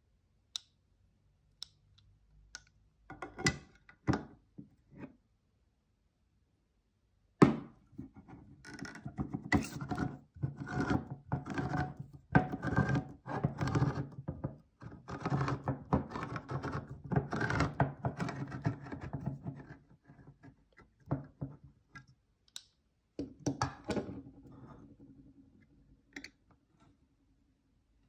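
Red Joie handheld can opener working on a metal can. First come a few clicks and one sharp clack as it is clamped on. Then comes a long run of quick, rattling clicks as the knob is turned and the cutting wheel works around the rim, and after a short pause another brief burst of turning.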